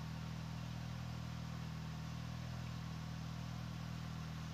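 A steady low hum with a few even low tones that does not change.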